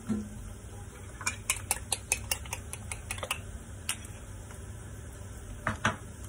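A spoon clicks and taps against a small bowl: a quick run of light clicks, about four a second, for a couple of seconds. A few more taps follow near the end, over a faint steady hiss.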